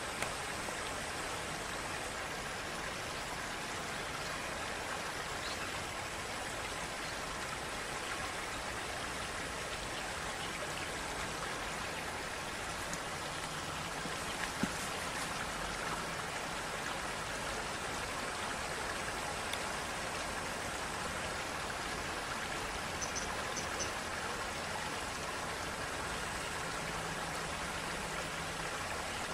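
Steady rush of running water, even and unbroken, with a single small tap about halfway through.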